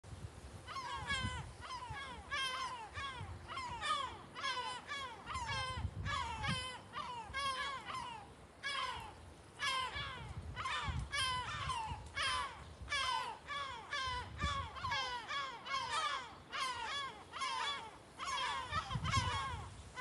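A flock of gulls calling overhead: a rapid run of harsh, slightly falling calls, two or three a second, with a short break about eight seconds in.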